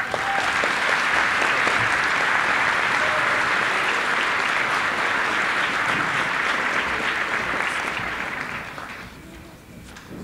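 Audience applauding, the clapping tapering off and dying away about nine seconds in.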